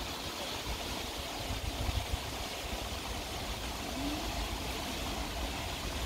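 Steady outdoor background hiss with wind rumbling on the microphone.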